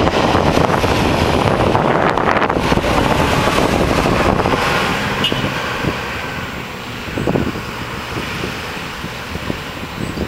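A tractor towing a silage trailer draws away, its engine and running noise fading steadily from about halfway. Wind gusts hit the microphone.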